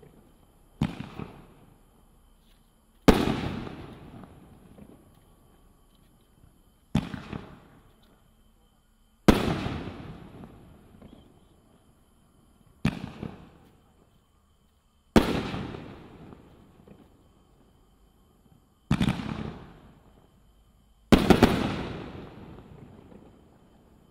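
Brothers 'Stoked' 500 g fireworks cake firing four shells in turn. Each is a short thump as the shell lifts from its tube, then a louder boom about two seconds later as it breaks in the air, trailing off over a couple of seconds. The last break comes as several reports close together.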